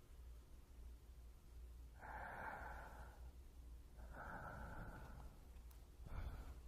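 Close-miked human breathing: two slow breaths about a second long each, then a shorter one near the end, over a low steady hum.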